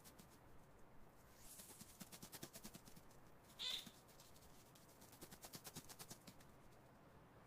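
Faint, rapid scratching and clicking of a mouse scurrying, with one short high-pitched call a little past halfway.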